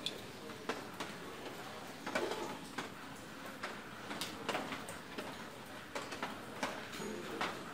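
Scattered light clicks and taps at irregular intervals, over low background noise.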